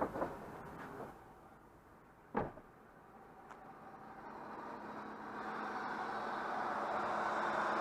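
2001 Acura MDX: a couple of knocks near the start and a sharper thump about two and a half seconds in, then the vehicle's running noise growing steadily louder over the last few seconds.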